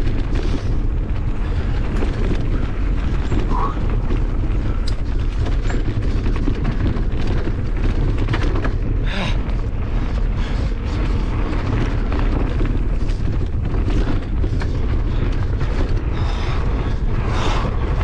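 Wind buffeting an action camera's microphone and knobby tyres rolling over a rocky dirt trail on a Merida Big Trail 500 hardtail mountain bike. It makes a loud, steady low rumble with scattered short rattles and clicks from the bike.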